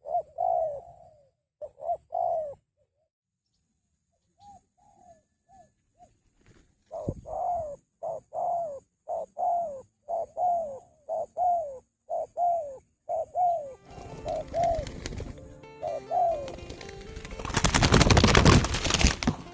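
Spotted doves cooing: short notes that rise and then slide down, scattered at first, then a steady run of about two a second. From about two-thirds of the way in, a rushing noise builds, loudest in the last two seconds.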